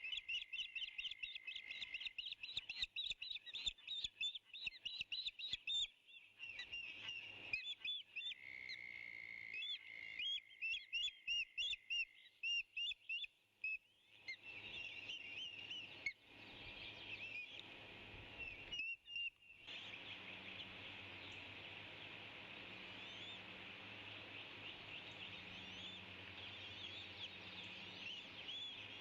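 Hungry eagle chick begging: rapid runs of short, high, repeated chirps. A steady high tone sounds alongside in the first two seconds and again from about 8 to 12 seconds in. From about 14 seconds in, the chirps sit over a dense high hiss.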